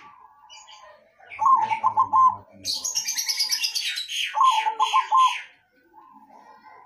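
A caged zebra dove (perkutut) cooing: two phrases of quick pulsed coos, one about 1.5 s in and one about 4.5 s in, with softer coo notes around them. Over the middle a high, rapid chirping from another bird, about four or five notes a second, starts about 2.5 s in and stops near 5.5 s.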